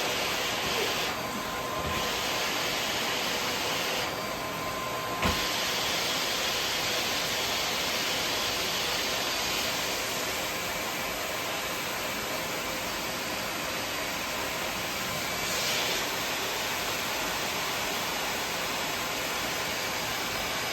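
Vacuum cleaner running with a steady whooshing hiss. The higher hiss dips briefly twice in the first few seconds, and there is a sharp knock about five seconds in.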